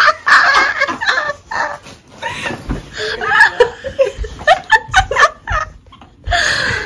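Young women laughing hard in short repeated bursts, mixed with quick knocks and handling noise.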